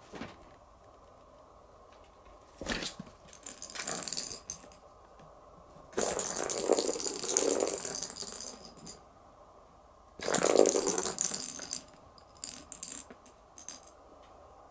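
Bursts of rustling and rattling from a kitten scrambling about at play, the longest lasting about three seconds, with shorter ones before and after.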